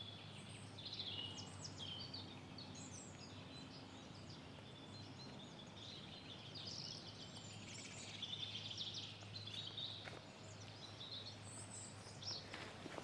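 Faint birdsong: many short chirps and trills from small birds, over a faint steady low hum.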